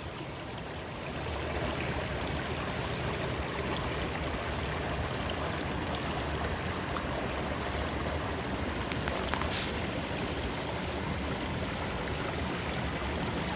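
Steady rushing sound of running water, slightly louder from about a second in, with one faint click about nine and a half seconds in.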